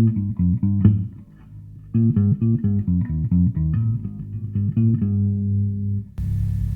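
Ibanez electric bass played through a JOYO Dr J Sparrow bass preamp pedal into an amp speaker. It plays a quick run of plucked notes, pauses briefly about a second in, plays another run, then lets a held note ring until it stops near the end. The pedal's highs have just been raised.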